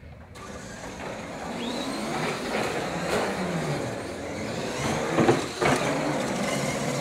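R/C monster trucks running, their motors whining up and down in pitch as they speed up and slow, over a steady noise of tyres on the floor. There are two sharp knocks just past five seconds in.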